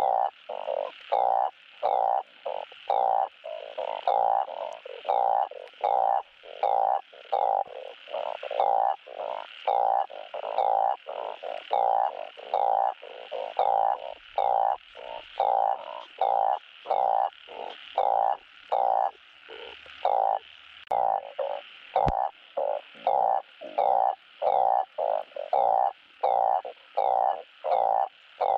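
Male blunt-headed burrowing frog (Glyphoglossus molossus) giving its mating call, a short low croak repeated over and over in a steady, even series.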